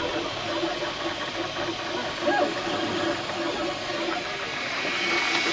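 MakerBot 3D printer's stepper motors running as the print head moves: short stretches of whine that step up and down in pitch, repeating every second or so, over the steady rush of its cooling fans.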